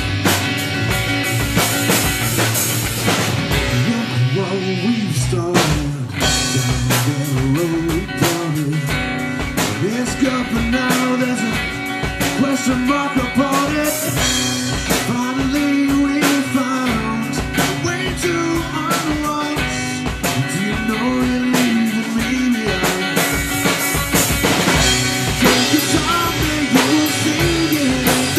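Live rock band playing a song: a male singer with an acoustic guitar, backed by a second guitar and a drum kit with a steady beat.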